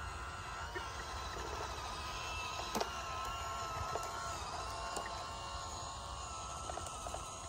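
Small motor and gearbox of a handmade remote-controlled miniature tractor whining steadily as it pulls a heavily loaded trolley, over a low rumble. A few sharp clicks, the loudest about three seconds in.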